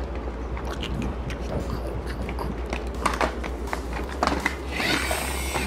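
Plastic toy trucks being handled, with scattered small clicks and taps over a steady low hum.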